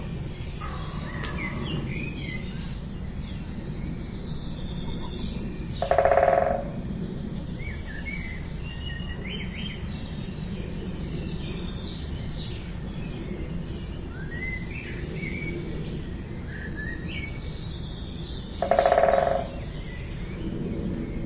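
Small birds chirping and calling over a steady low background rumble. Twice, about 13 seconds apart, a louder pitched sound lasting under a second stands out above them.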